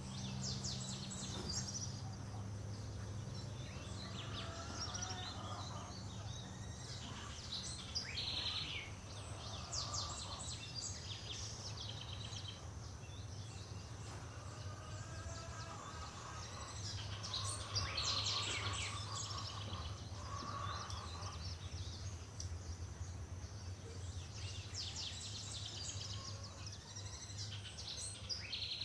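Wild birdsong: several birds giving rapid high trills and chirps that come in short bouts every few seconds, over a steady low background hum.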